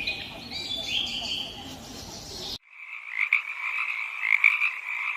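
Short high-pitched animal calls, then an abrupt cut about halfway through to a dense frog chorus: many frogs croaking together in a steady, pulsing din with louder peaks here and there.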